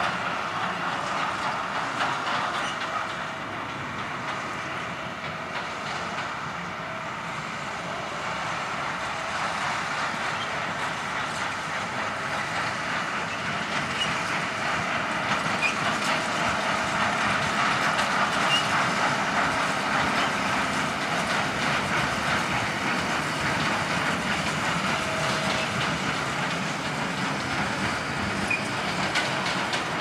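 Tractor-drawn Massey Ferguson conventional small square baler and Bale Baron bundler working, a steady mechanical clatter over the tractor's engine. The sound grows louder toward the middle as the outfit passes close.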